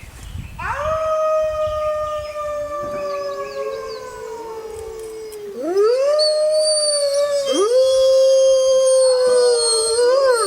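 Wolves howling in chorus. A first long howl begins about half a second in and falls slowly in pitch, a second wolf joins about three seconds in, and more howls rise into long held notes and overlap, louder in the second half.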